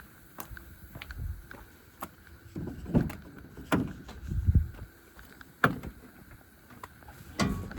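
Irregular clicks and knocks of handling, with a few heavier low thumps about three to four and a half seconds in and again near six seconds.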